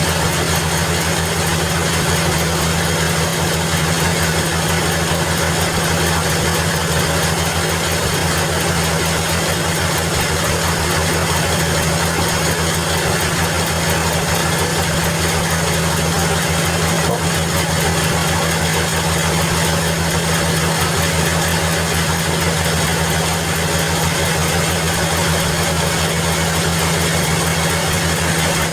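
Sawmill band saw running with a steady low drone.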